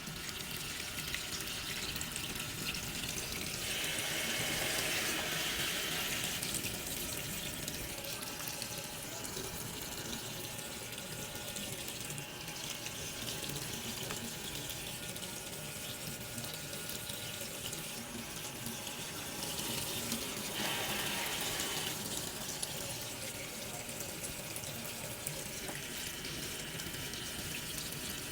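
Water running steadily, as from a tap, with two short louder stretches about four and twenty-one seconds in.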